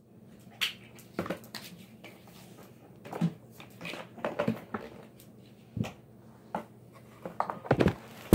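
Irregular knocks and thumps, about a dozen short ones spread over several seconds, with a cluster of louder ones near the end.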